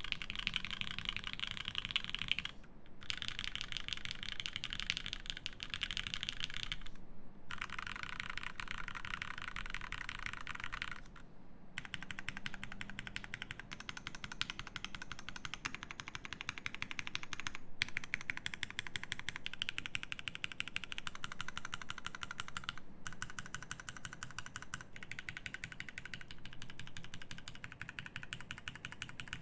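Fast continuous typing on a Merisi Sessantacinque mechanical keyboard with lubed Nixie switches, an aluminium plate, GMK keycaps and a tape mod: a rapid stream of key clicks and bottom-outs, broken by brief pauses every few seconds.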